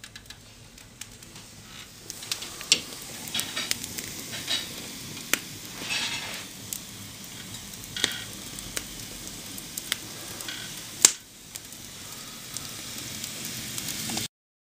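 Wood fire burning in an open fireplace insert, crackling with scattered sharp pops over a faint hiss. One louder pop comes about eleven seconds in.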